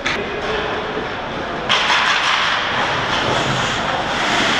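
Ice hockey play in a rink: a couple of sharp clicks of stick and puck on the ice, then from a little under two seconds in a steady scraping hiss of skate blades on the ice.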